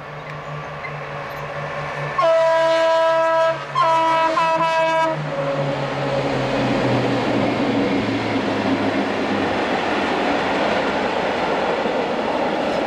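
A freight train hauled by two diesel locomotives, HŽ series 2062 and SŽ series 664, passes close by. The lead locomotive sounds its horn twice, a long blast about two seconds in and a second one just after, while the engine drone falls in pitch as the locomotives go by. The wagons then roll past with a steady, loud rumble.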